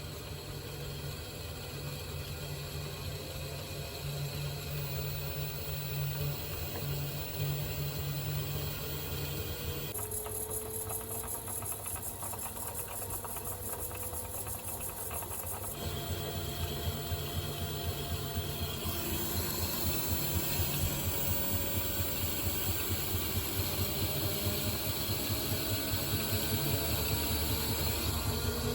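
Panasonic drum-type washing machine running, its drum turning on the belt drive with an even low churning rhythm and a faint motor whine that slowly rises in pitch. The sound changes abruptly about ten seconds in and again about six seconds later.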